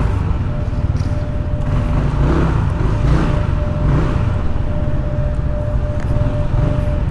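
Riding a Yamaha NMAX 155 scooter: wind buffeting the microphone as a steady low rumble, with a faint steady high whine over it.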